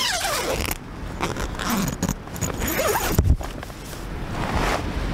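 Camera handling noise: rustling and scraping against the microphone as the camera is moved about, with a few clicks and a low knock a little after three seconds in.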